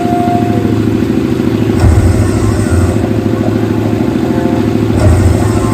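Loud, heavily distorted, bass-heavy remix music played through a portable sound system, with a heavy bass hit about two seconds in and again near the end.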